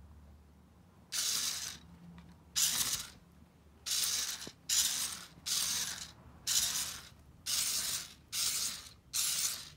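Small motorized Lego vehicle's motor and gears running in about nine short, noisy bursts of roughly half a second each, starting and stopping as the toy drives.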